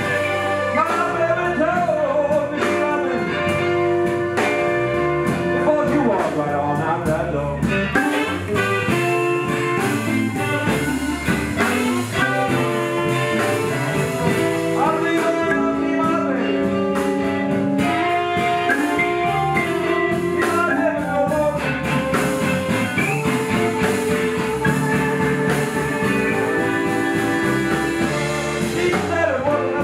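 Live blues band playing, with guitar among the instruments and a steady, unbroken sound.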